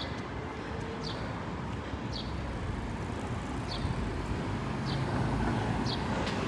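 Outdoor street ambience: a steady traffic hum that swells slightly midway, with a short, high, falling chirp repeating about once a second.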